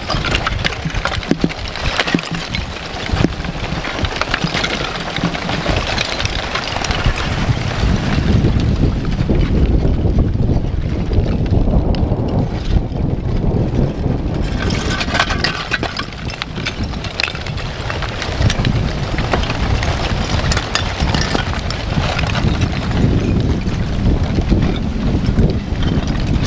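Wind rumbling across the microphone, with scattered small crackles and clinks from the front of a blocky lava flow as cooling chunks shift and crack.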